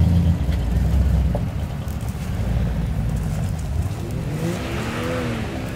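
Off-road Jeep engines working on a steep dirt hill climb: a heavy engine sound for the first second or so, then about four seconds in an engine revs up and drops back down.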